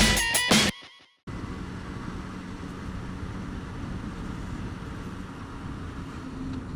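Loud intro music with heavy guitar strikes cuts off under a second in; after a short gap, a Suzuki DRZ400SM's single-cylinder engine with a carbon aftermarket exhaust runs steadily, heard from the rider's helmet camera.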